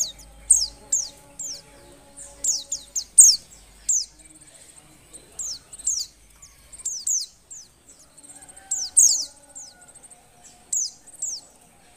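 Female white-eye (pleci) calling in breeding condition: a rapid run of short, high-pitched chirps, each sweeping downward, coming in quick clusters of two or three, over a faint continuous high trill.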